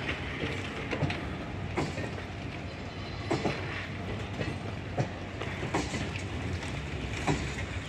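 Passenger train coaches rolling past on an adjacent track: a steady rumble with sharp wheel clacks over rail joints at uneven gaps, about one a second.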